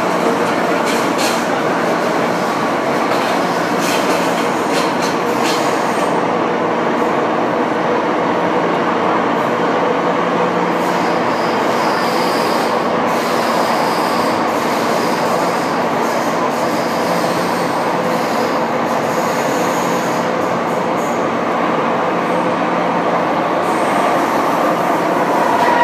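Hong Kong MTR M-Train (car A205) running on the Kwun Tong line, heard from inside the driving cab: a steady rumble of wheels on rail with a constant low hum underneath. There are a few sharp clicks in the first six seconds.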